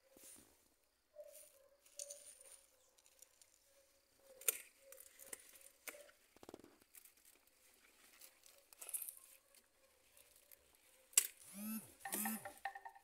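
Leaves and stems of boldo plants rustling and tearing as they are gripped and pulled up by hand while weeding, in scattered short bursts. Near the end comes one sharp click, followed by two short squeaks that slide downward.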